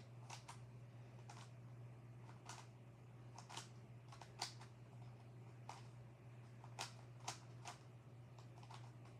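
Faint plastic clicks of a QiYi megaminx's layers being twisted and snapping into place, about a dozen at an uneven pace.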